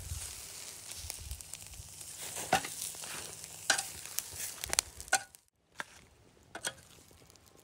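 Romaine lettuce halves sizzling on a charcoal grill grate, with sharp clicks of metal tongs against the grate as they are turned and lifted. The sizzling cuts off suddenly about five seconds in, leaving only a few faint clicks.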